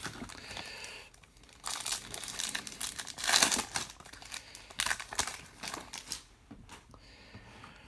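A trading-card pack wrapper being torn open and crinkled by hand, in several irregular bursts of rustling, the loudest a little past halfway, then quieter rustles near the end.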